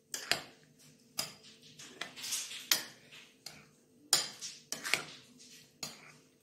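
Metal spoon clinking against the side of a glass bowl while stirring chopped fruit into thick custard: a dozen or so irregular sharp clinks with short ringing tails.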